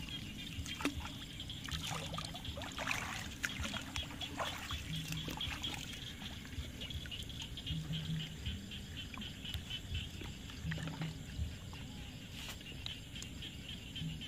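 Water trickling and splashing around hands working a fishing net in shallow paddy water, over a steady chorus of night insects, with a short low animal call every few seconds.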